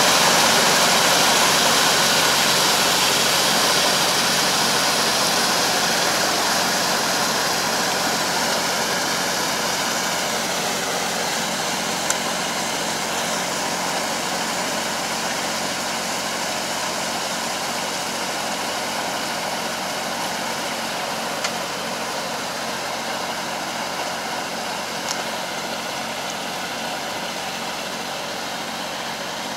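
Tractor engine running steadily as it pulls a Kobashi rotary puddling harrow through a flooded rice paddy, with the harrow churning muddy water. The sound fades gradually as the tractor drives away.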